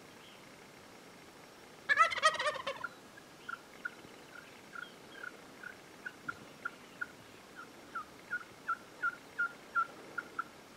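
Gould's wild turkey gobbler gobbling once, a loud rattling gobble about two seconds in. It is followed by a long run of short high notes, about two or three a second.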